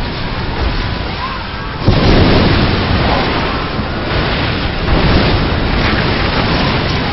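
Heavy sea surf: waves breaking in a loud rush of noise, with a sudden surge about two seconds in and another near five seconds.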